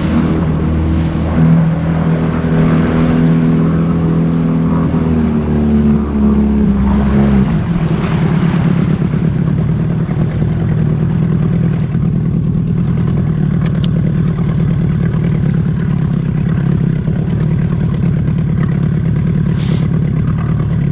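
A boat's outboard motor running steadily under way on a trolling pass. About seven seconds in, its note changes to a lower, buzzier hum.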